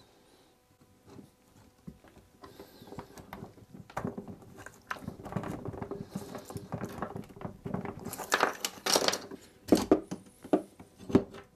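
Wooden tea cart wheel being worked apart by hand: scattered clicks, knocks and creaks from a loose rim segment and the wooden wedge in its joint. They get busier, with a run of sharper knocks and cracks about eight seconds in as the segment is worked loose.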